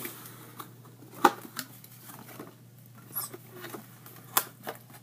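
A cardboard box being opened and handled: a scatter of sharp clicks and taps as the lid and flaps are worked, the loudest about a second in.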